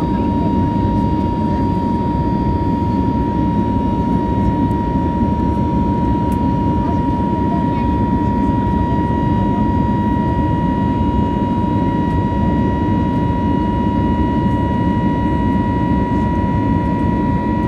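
Airbus A320neo turbofan engines in flight, heard inside the cabin: a steady, loud jet roar with a constant high whine on top.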